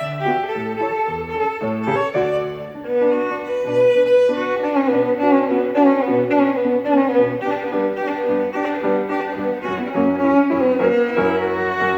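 Classical chamber music: a violin playing sustained melodic lines over a lower accompaniment of shifting bass notes.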